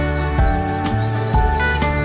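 Instrumental background music: a guitar melody of held, sliding notes over a bass line.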